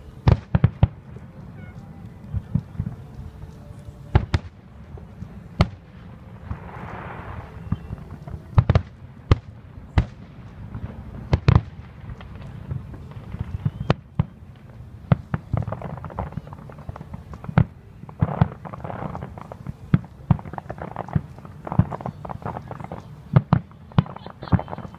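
Aerial fireworks shells bursting, a long run of sharp bangs at irregular intervals, some coming in quick clusters, over a steady low rumble.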